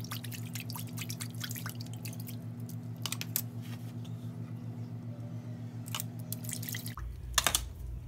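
Water in a foil-lined sink being swished and stirred by hand to dissolve borax and salt, with small splashes and drips that thin out as the water settles. A steady low hum runs underneath.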